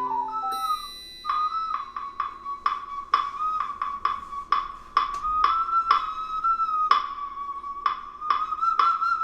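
Ocarina holding a high, wavering note for several seconds while sharp percussive clicks are tapped irregularly over it, after a short keyboard-accompanied phrase ends about half a second in. A brief high bell-like ring sounds just before the held note starts.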